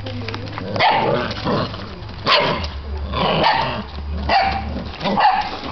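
Six-week-old Bernese mountain dog puppy giving a string of about five short, high puppy barks and yips, roughly one a second.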